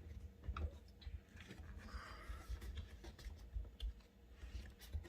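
Faint, scattered light clicks and taps of small parts being handled during reassembly of a dishwasher door.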